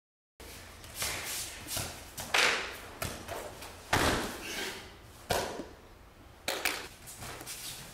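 Bodies landing on judo mats during repeated sumi-gaeshi sacrifice throws: several sharp thuds and slaps, roughly one every second or so.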